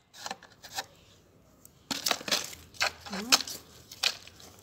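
A series of sharp clicks and knocks from plant containers and soil being handled, with a quiet gap of about a second after the first two.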